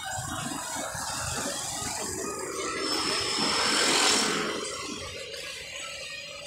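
A vehicle passing close by on the street: its noise swells to a peak about four seconds in, then fades away.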